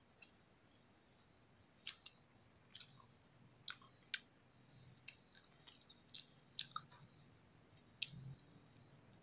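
Faint mouth sounds of a person chewing a bite of fried egg: about a dozen short, irregular wet clicks and smacks.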